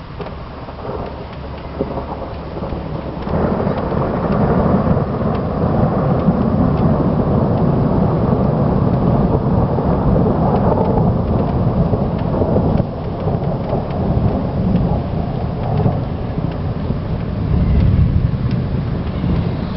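Thunder rolling in a long, deep rumble during a severe thunderstorm. It swells about three seconds in, eases briefly past the middle and swells again near the end, with rain falling.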